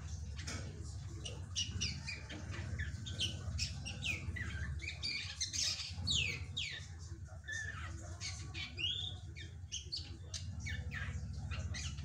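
Juvenile drongo (srigunting) singing a quick, irregular run of short, sharp chirps and whistles, some sliding up or down in pitch, over a steady low hum.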